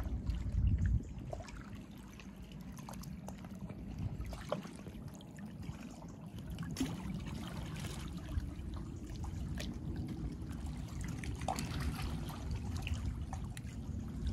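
Small sea waves lapping and trickling among shoreline rocks, with many small irregular clicks and gurgles over a steady low rumble.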